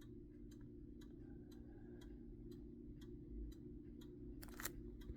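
Faint, even ticking about twice a second over a low steady hum, with one louder click near the end.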